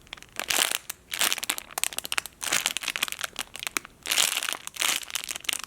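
Plastic packaging crinkling in repeated bunches of rustles as it is handled and opened.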